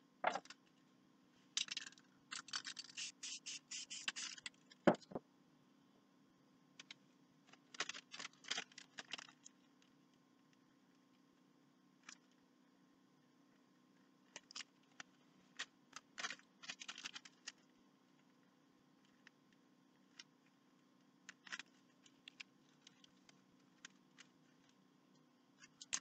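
Scratching and scraping of hands and paper sheets worked over a spray-painted board, in a few short clusters with scattered clicks, over a faint steady hum.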